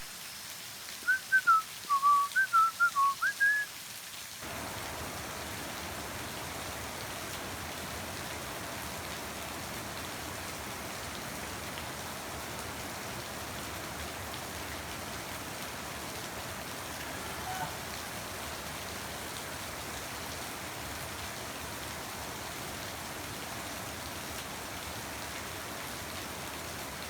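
A run of short whistled chirps, each gliding up or down, for the first few seconds, then steady rain falling.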